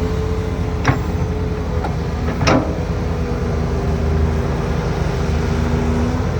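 Volvo EC480 excavator working, its diesel engine running with a steady drone and a held whine. Two sharp knocks sound about a second and two and a half seconds in.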